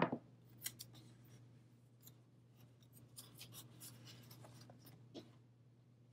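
Yarn being woven by hand through the warp threads of a loom: faint rustling and scratching with a few light clicks, the sharpest right at the start, over a steady low hum.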